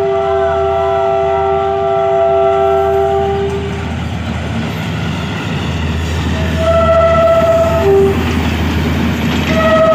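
Pakistan Railways RGE-24 diesel locomotive sounding its multi-tone horn as it approaches: one long blast, then a shorter one about two-thirds of the way through and another starting near the end. The diesel engine's low rumble runs underneath.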